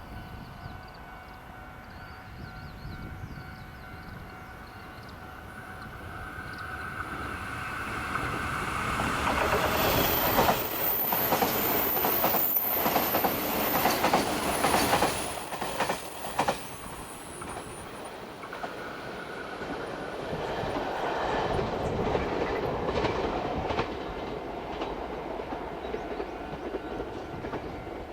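A train passing over a railway level crossing. Its wheels click over the rail joints and it is loudest about ten to sixteen seconds in, with a high wheel squeal at the peak. The sound swells once more around twenty seconds in and then fades as the train moves off.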